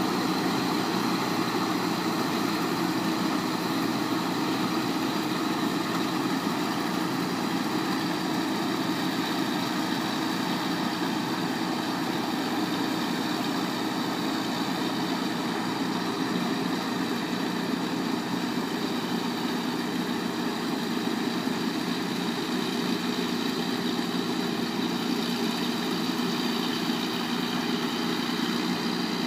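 Rice combine harvester's engine running steadily at an even pitch, with no change in speed.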